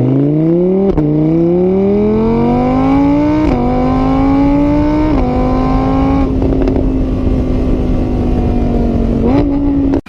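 A vehicle engine accelerating through the gears: its pitch climbs, drops suddenly at each of three gear changes, then holds steady at speed with a brief rise near the end.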